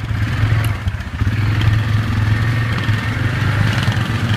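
ATV engine running, a steady low hum that eases briefly about a second in before carrying on.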